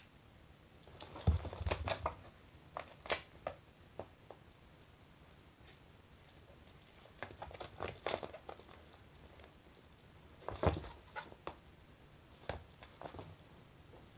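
A young cat wrestling a stuffed fabric shark toy on a floor mat: spells of scuffling, rustling and scratching from its paws and claws, with a heavier thump about a second in and another about ten and a half seconds in.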